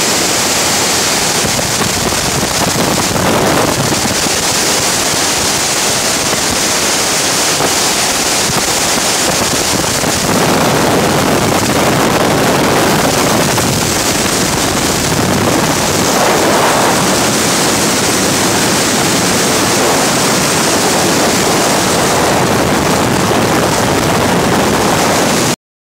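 Loud, steady rush of freefall wind blasting over the camera microphone, swelling and easing slowly; it cuts off suddenly near the end.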